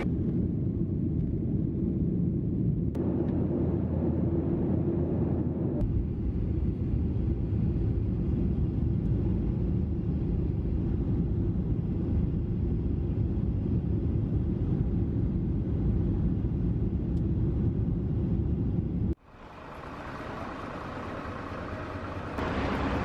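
Steady low rumble of a Boeing 737's jet engines heard inside the passenger cabin during the flight, growing fuller about three and again about six seconds in. About 19 seconds in it cuts off abruptly to a quieter outdoor hum, which grows louder near the end.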